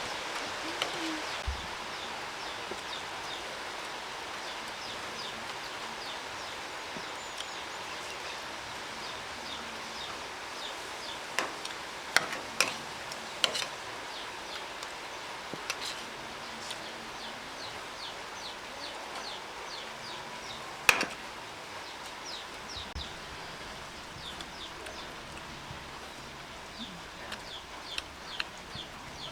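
Outdoor ambience: many small birds chirping in short, high, repeated calls over a steady hiss, with a few sharp clicks, most of them about halfway through and the loudest a little later.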